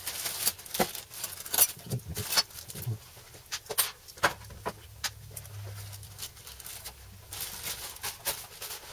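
Scattered light clicks and taps of small hardware being handled: screws picked up from the table and a cover plate laid on the back of the guitar body.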